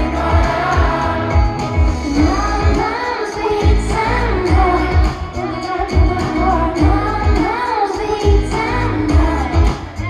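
A woman singing live into a handheld microphone over a pop backing track with a pulsing bass beat, heard through a concert sound system.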